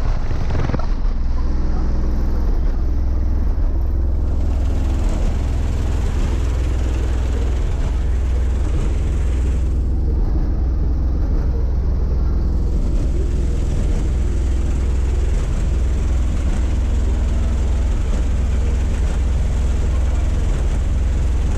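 Van's bank of eight Otis Designs 15-inch subwoofers playing a steady, very deep subsonic bass at full power for a sound-pressure score run, heard from outside the vehicle.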